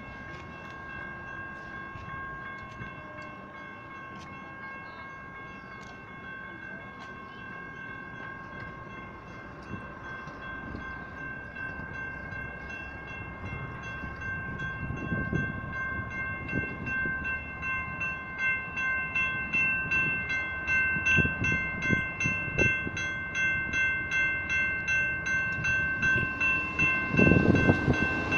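Electronic railroad crossing bells (General Signals electronic bells) ringing steadily at a flashing, gated grade crossing, dinging about twice a second. Toward the end the rumble of an approaching BNSF freight train led by GE diesel locomotives grows louder under the bells.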